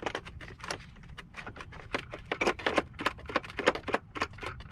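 Small metal caliper wind-back tool adapters clinking and clacking as they are handled and fitted into their plastic kit case: a dense run of small clicks and knocks, busiest in the second half.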